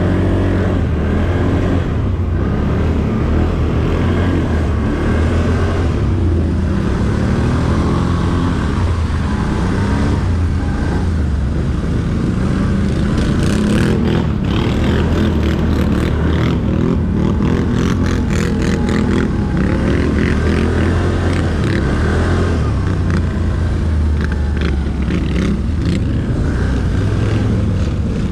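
ATV engine running steadily under way, a low drone that wavers slightly as the throttle varies, with scattered light clicks in the middle.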